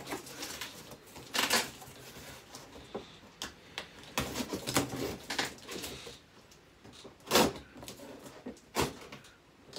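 Cardboard box and packaging being handled and opened: irregular rustles, scrapes and knocks, with the loudest knock just past halfway.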